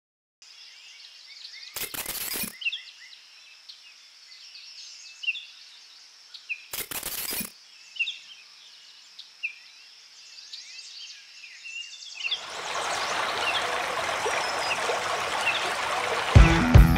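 Birds chirping over a faint outdoor ambience, broken twice by a short loud burst of noise. About twelve seconds in, the rush of fast river rapids rises and takes over.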